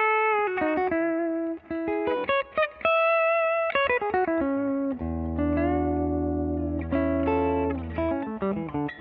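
Electric guitar played through a Universal Audio UAFX 1176 Studio Compressor pedal in its sustain mode. It plays a slow line of mostly single notes, each held long at an even level, with a low note ringing under a higher one about five seconds in.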